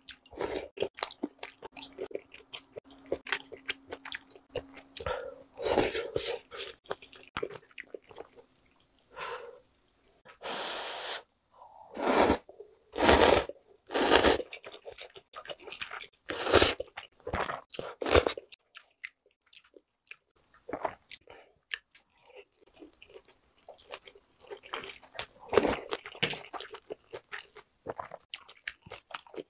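Close-miked eating of spicy soft-tofu jjolmyeon noodle soup: wet chewing throughout, with a run of loud slurps of noodles and soup in the middle.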